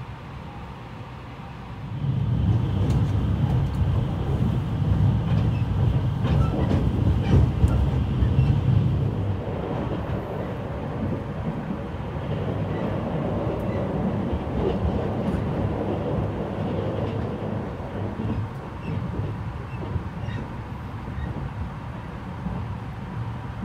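Running noise of an E653-series electric express train heard inside the passenger car: a steady low rumble of wheels on rails. It grows sharply louder about two seconds in, with a few faint clicks, and eases somewhat after about ten seconds.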